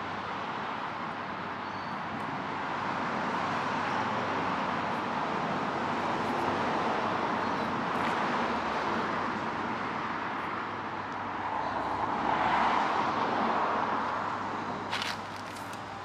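Street ambience of road traffic, a steady noise of passing cars that swells as one goes by about twelve seconds in. A few short sharp clicks come near the end.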